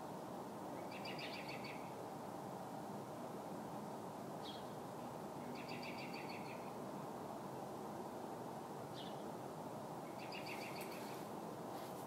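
American robin distress calls: three quick runs of rapidly repeated short notes, each about a second long and roughly five seconds apart, with a single short high note between each run. A steady low background noise runs underneath.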